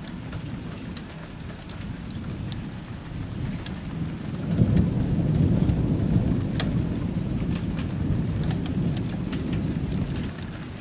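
Thunder rumbling low, swelling sharply about four and a half seconds in and staying loud, over falling rain with scattered drops ticking close by.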